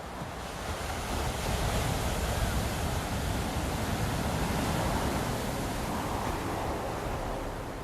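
Ocean surf with road traffic: a wash of noise that swells about a second in and eases off near the end.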